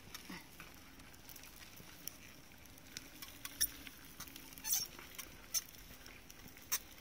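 Scattered light clicks and taps at irregular intervals, a few louder ones about halfway through and near the end, over a faint steady low hum.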